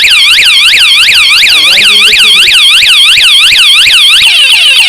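A wsdcam 113 dB vibration bike alarm sounding its siren after the armed bike has been touched. It repeats a loud swooping tone about four times a second, then switches near the end to a faster warbling pattern.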